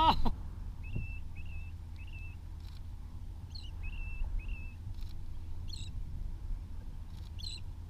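Short, high bird calls: about five brief flat whistled notes, then a few raspier calls, scattered over a steady low rush of wind and choppy water.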